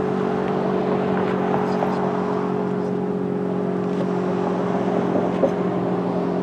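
Federal Signal STH-10 dual-tone mechanical siren sounding a steady blast: a held chord of tones that does not rise or fall.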